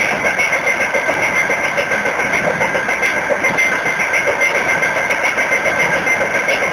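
Freight train wheels running on the rails, heard from aboard the moving train: a steady rolling noise with a high ringing whine held throughout.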